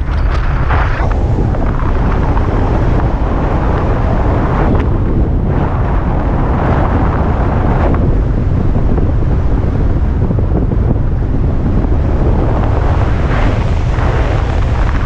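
Loud wind rush buffeting the microphone of a harness-mounted camera in flight under a speed wing, steady, with gusty swells now and then.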